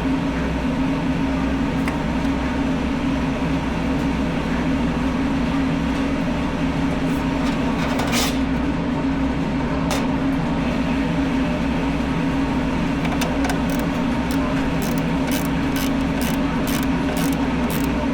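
Steady low mechanical hum, with a run of quick, sharp clicks in the last few seconds.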